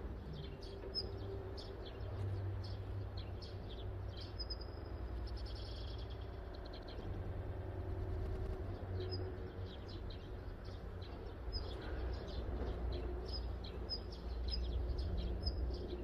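Small birds chirping, short high chirps repeating throughout, over a low steady rumble.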